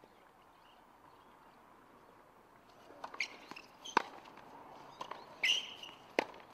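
Tennis rally on a hard court, starting about three seconds in: sharp pops of racket strings striking the ball, the loudest about four seconds in and another near the end, with ball bounces and brief shoe squeaks on the court between.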